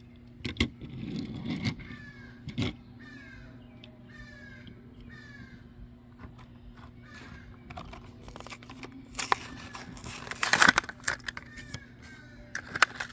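Hot Wheels blister card being opened by hand: scattered clicks, and a loud burst of crinkling and tearing packaging about ten seconds in, with more near the end. Earlier, a bird caws about six times in a row in the background.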